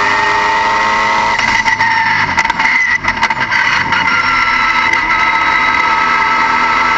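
Car engine running at fairly steady revs with a high, steady whine; about halfway through there is a brief dip with a few clicks before it settles again.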